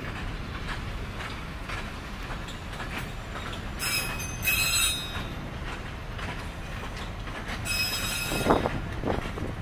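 Herzog gravel train's hopper cars rolling past on the rails: a steady rumble of wheels on track, with high-pitched wheel squeal twice, about four and eight seconds in.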